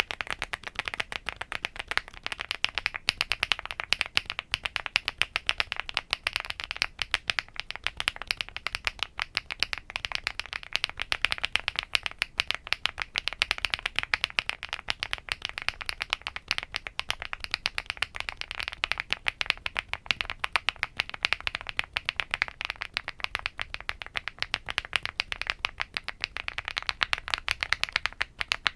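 Fast, continuous typing on a WOB Rainy75 mechanical keyboard: a dense stream of keystroke clacks, many a second. The switches change about every eight seconds, running through JWK Wob, HMX Woblab Violet, HMX Pebble and HMX Hibiscus, with KTT Coconut Latte near the end.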